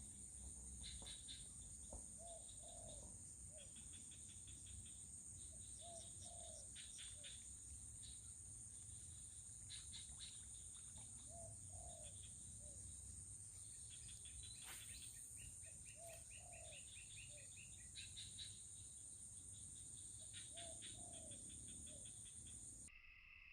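Outdoor wildlife ambience: a steady high-pitched insect drone, with quick trains of chirps and a short two-note call that recurs every few seconds. The sound changes abruptly near the end.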